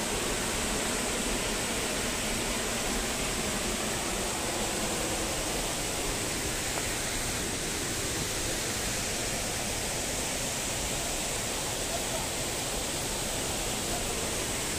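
Waterfall flowing: a loud, steady, unbroken rush of falling water.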